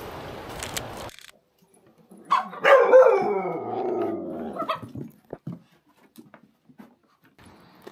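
A dog gives a short yelp, then one long howl that falls steadily in pitch over about two seconds. Before it, about a second of wind noise on the microphone cuts off suddenly.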